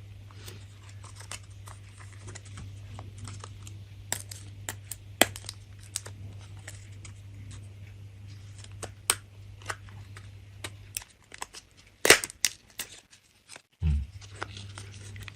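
Scattered small clicks, taps and some crinkling of hands handling a laptop RAM module and the open laptop's parts, with a couple of sharper knocks about twelve seconds in. A steady low hum runs underneath and drops out briefly near the end.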